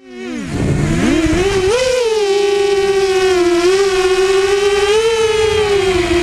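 ImmersionRC Vortex Pro racing quadcopter's motors and propellers whining. The pitch dips and climbs with the throttle in the first two seconds, then holds high with small swings up and down.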